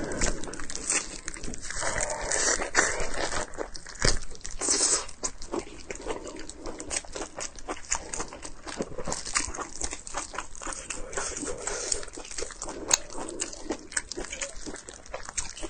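A person chewing and smacking fatty pork, a steady run of wet clicks and crunches.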